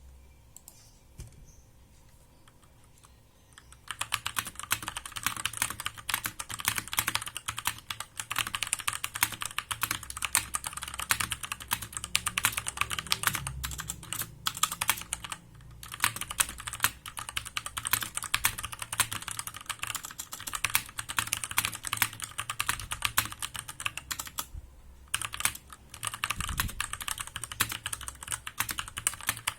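Typing on a Digital Alliance Meca 8 mechanical keyboard with stock Outemu Brown tactile switches: a fast, continuous run of key clacks. It starts about four seconds in, after a quiet opening, and pauses briefly twice.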